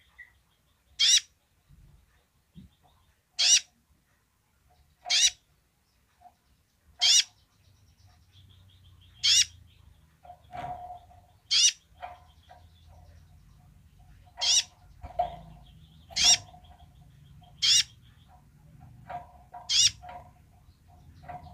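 Caged male purple-throated sunbird (kolibri ninja) giving its basic call: a sharp, high single note repeated about every two seconds, ten times. Softer, lower chips fall between the calls in the second half.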